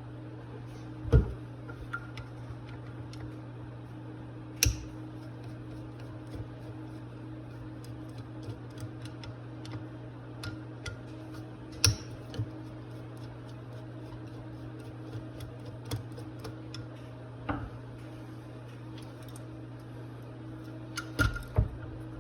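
Small metal parts and tools clicking and clinking as a Rochester 2GC two-barrel carburetor is taken apart, scattered taps and knocks with a few louder ones and a quick cluster near the end, over a steady low hum.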